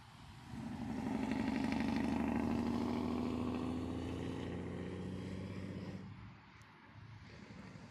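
Highway traffic passing close by: vehicle engine and tyre noise swells about half a second in and fades away about six seconds in, its pitch dropping slightly as the vehicles go past.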